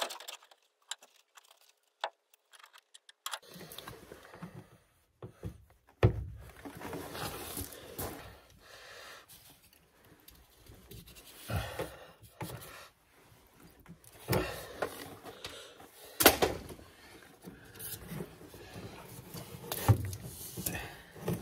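Hand-operated PEX A expansion tool squeezed on a pipe end: irregular clicks, creaks and knocks, sparse for the first few seconds and more frequent after.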